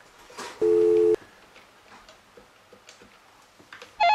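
A telephone dial tone, two steady tones held for about half a second, sounds just under a second in, and faint clicks follow. Near the end an electronic telephone ring starts, a loud warbling trill.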